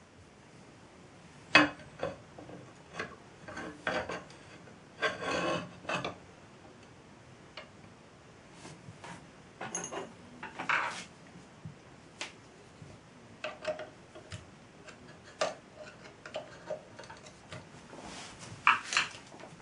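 Irregular clicks, taps and short scrapes of small hard objects being handled, with the loudest clicks about a second and a half in and near the end.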